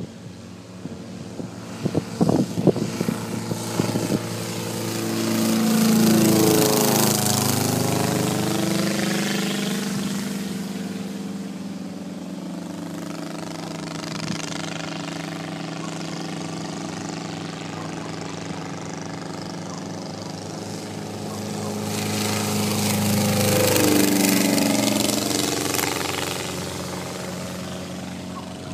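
Light propeller aircraft making two low passes, its engine drone growing louder as it approaches and dropping in pitch as it goes by, about six seconds in and again about 24 seconds in. Wind buffets the microphone in the first few seconds.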